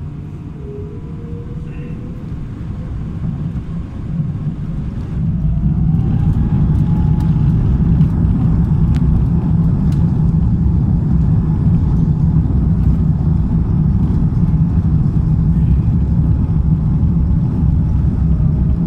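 Airbus A350-1000's Rolls-Royce Trent XWB engines spooling up to takeoff thrust, heard from the cabin: a rising whine about five seconds in, then a steady loud rumble as the airliner rolls down the runway.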